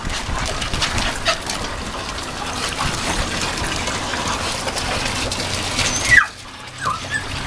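Water running in a steady gush, cutting off suddenly about six seconds in; a small dog gives two short high yelps near the end.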